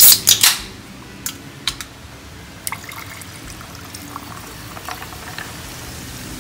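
Tonic water poured from a can into a large glass of ice, a steady pour over the second half. A few sharp clicks and clinks come in the first second, with a few more after.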